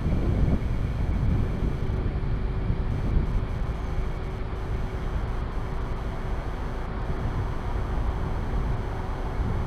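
Steady rumble of interstate highway traffic, swelling briefly at the start, with a faint steady hum underneath.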